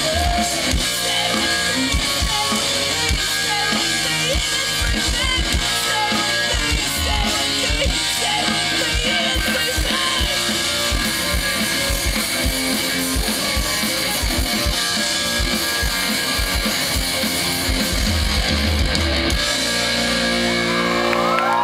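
Live rock band playing, electric guitar over a driving drum kit. About three-quarters of the way in the drums stop and held notes ring on.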